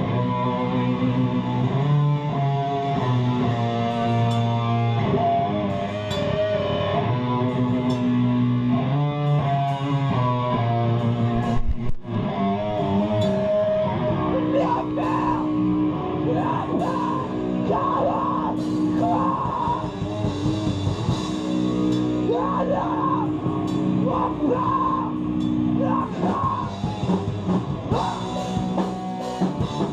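Hardcore band playing live: distorted electric guitars, bass guitar and a drum kit, with held chords that break off briefly about twelve seconds in before the band comes back in.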